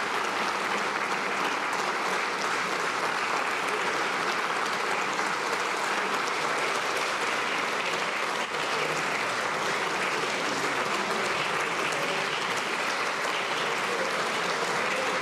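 Sustained applause from a large audience of lawmakers in a chamber, many hands clapping steadily at an even level without pause.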